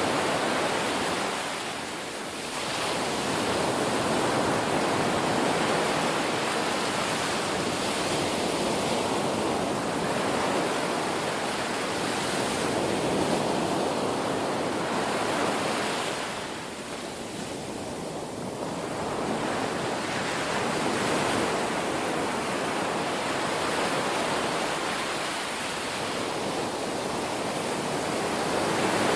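Ocean surf washing onto a shore in a steady rush, swelling and easing as each wave breaks and draws back, with dips about 2 seconds in, around 17 seconds and around 25 seconds.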